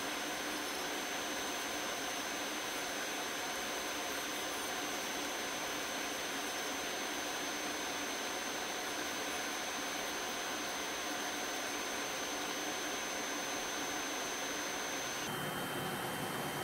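Electric nail drill running steadily with a thin high whine as its bit grinds down thick, fungus-infected toenails. The sound shifts slightly near the end.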